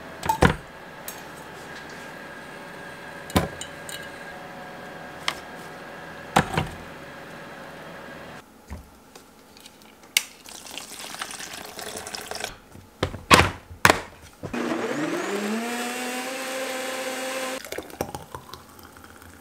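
A few sharp knocks and clunks around a blender jar, then a countertop blender motor starts up blending a cilantro and mango smoothie. Its whine rises in pitch, holds steady for about three seconds and cuts off.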